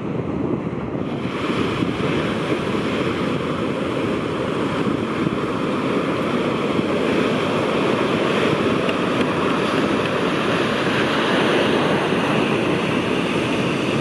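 Shorebreak surf: waves breaking close to the beach and white water washing up the sand in a steady wash of noise, with wind on the microphone.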